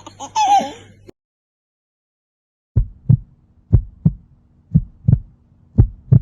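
Heartbeat sound effect: four double beats (lub-dub), about one a second, starting just under three seconds in after a brief silence.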